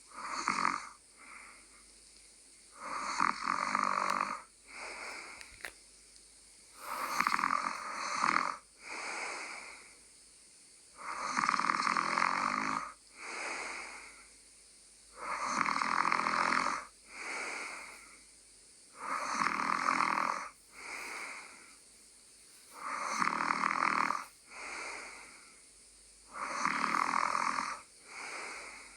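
A person snoring in a slow, even rhythm: eight loud snores about four seconds apart, each followed by a shorter, quieter breath.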